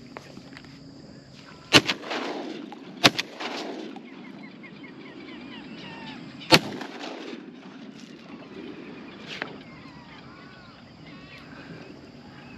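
Three shotgun shots fired at teal: the second about a second after the first, the third about three seconds later, each trailing off in an echo. A much fainter bang follows about three seconds after the last.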